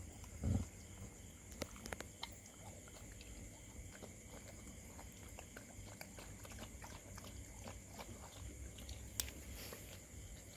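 An adult dog and puppies eating from metal bowls: soft chewing with many small scattered clicks and clinks, and a low thump about half a second in.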